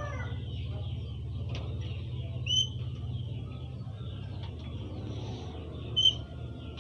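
A cockatoo gives two short, high chirps a few seconds apart, over a steady low hum.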